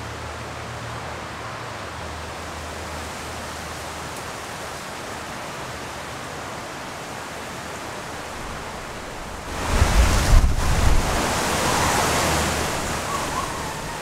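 Steady outdoor hiss of wind. About two-thirds of the way through, a stronger gust rises for a few seconds, rustling the trees and buffeting the microphone, then eases off.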